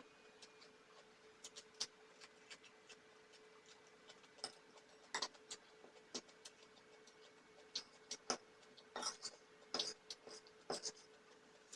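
Quiet eating sounds: irregular soft clicks and smacks, coming thicker in the last few seconds, over a faint steady hum.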